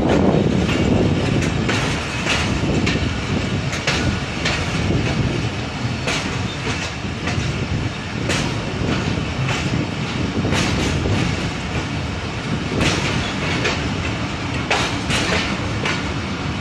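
Passenger train coaches rolling into a station, heard from an open doorway: a steady rumble of wheels on track with irregular clicks and clacks over the rails.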